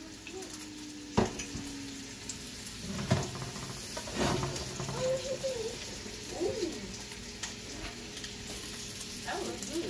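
Italian sausage sizzling as it fries in a pan, a steady hiss, with a few sharp knocks about a second in, about three seconds in and about four seconds in.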